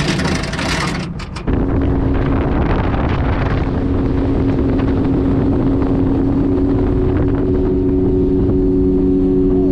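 Wind-like hiss for about a second and a half, then a sudden cut to a vehicle engine running at a steady speed, a low drone with a steady hum.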